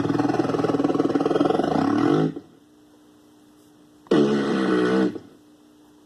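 Circuit-bent pocket sound-effects machine toy playing two electronic sound effects: the first lasts about two seconds and drops in pitch near its end, the second, about four seconds in, is about a second long. A faint steady hum sits between them.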